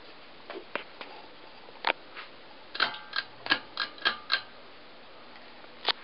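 Hunter Summer Breeze ceiling fan running, with a string of sharp metallic clicks that each ring briefly. They come irregularly at first, then about three a second for a second and a half, with one more near the end.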